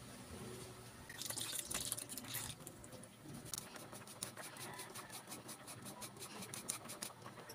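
Cheese being grated on a flat metal hand grater, a run of quick, even rasping strokes through the second half. Before that, a louder stretch of stirring and scraping in a pan of cream sauce.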